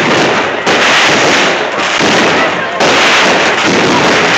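Aerial fireworks bursting in a dense, continuous barrage of bangs and crackling, loud throughout with no pause.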